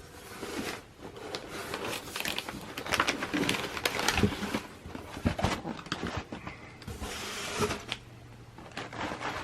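Cardboard sneaker box being handled and opened: uneven rustling with scattered light knocks and clicks.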